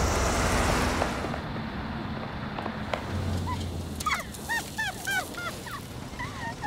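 A broad rushing noise fades out over the first second and a half. From about halfway in, a run of short high-pitched giggles, two or three a second, as two girls laugh.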